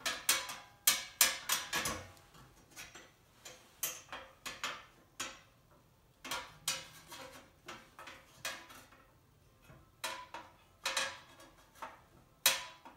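Metal parts of a hose reel clicking and clinking as they are handled and fitted together: a quick run of clicks in the first two seconds, then scattered clinks, the sharpest one near the end.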